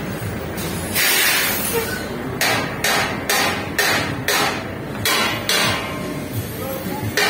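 Hammer blows on steel in a metal fabrication shop: a string of sharp strikes, about two a second with uneven gaps, after one longer half-second noise about a second in.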